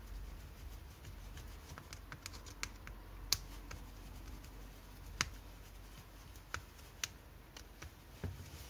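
Faint, scattered clicks and ticks of a Wiha screwdriver turning the wire-terminal screws inside a plastic mains plug, the sharpest clicks a little after three seconds, about five seconds and twice near seven seconds in.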